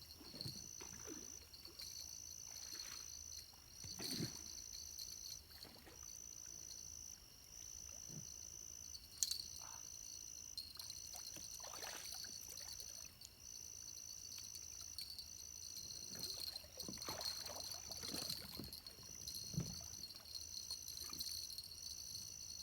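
Faint, irregular water splashing and sloshing from a hooked flathead catfish being fought in toward the river bank. A steady high-pitched hum that pulses on and off runs underneath.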